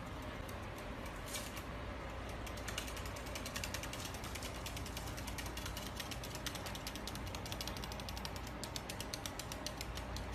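White-bellied caique's claws clicking and tapping on a wooden tabletop as it walks and hops, a rapid, irregular run of small sharp clicks that comes thicker and faster near the end.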